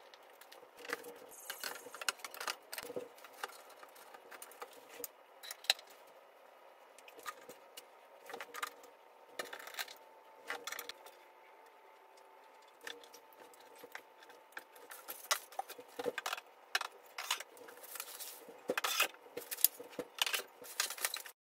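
Scattered clicks, taps and small metal rattles of hand-assembling flat-pack furniture with a screwdriver and screws, getting denser and louder in the last few seconds before cutting off suddenly.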